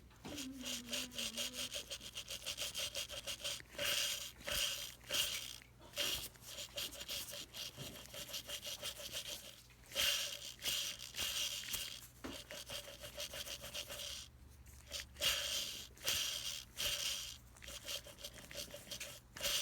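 A bad bearing in an HVAC motor running: a rough, fast scraping and squeaking that swells and fades every second or two, the sound of a worn, failing bearing.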